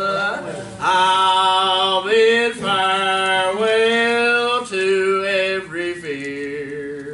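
A man singing a hymn in long, drawn-out held notes that step from pitch to pitch, fading out near the end.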